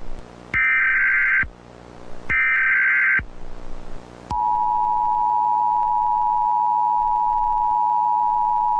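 Emergency Alert System SAME header: two shrill, warbling digital data bursts about a second long, each followed by a short gap. About four seconds in, the steady two-tone EAS attention signal starts and holds.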